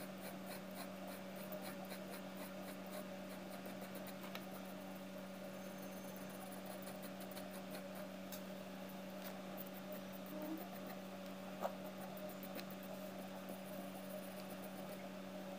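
Graphite pencil strokes scratching faintly on drawing paper, over a steady low electrical hum.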